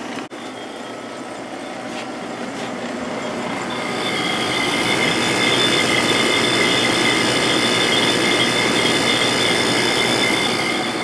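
Sharp window air conditioner running: steady fan airflow with the compressor giving a high metallic ringing, several steady high tones that grow louder about four seconds in and ease off near the end. The ringing is the noise this compressor always makes shortly after startup.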